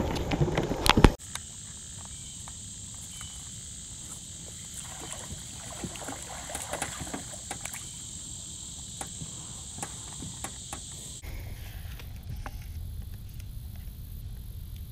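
Insects droning steadily in a high, even hiss with scattered small clicks. It starts and stops abruptly, after a couple of sharp knocks at the start, and gives way near the end to a low rumble.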